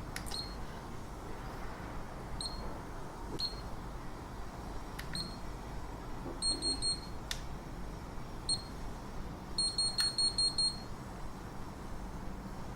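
Hawkeye Firefly 8S action camera beeping as its buttons are pressed through the menu. Short high beeps come one at a time, then in quick runs of several, about six near the middle, with a few sharp button clicks between them.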